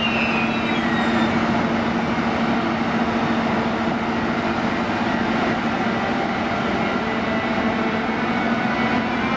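ÖBB class 1116 Taurus electric locomotive hauling a Railjet away from the platform at low speed. Its traction equipment gives a steady electric hum with a fainter whine that falls in pitch about a second in, over a constant rolling noise.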